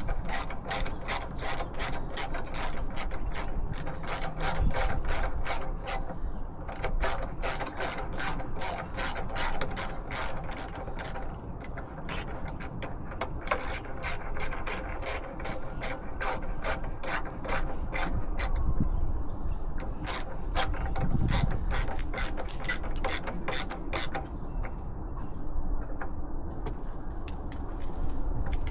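Socket ratchet wrench clicking in quick repeated strokes, about three clicks a second, with short pauses between runs as a fastener is turned.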